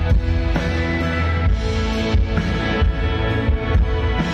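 Music played loud through a large concert sound system with stacked subwoofer cabinets. A heavy bass line and drum hits run under sustained melodic notes.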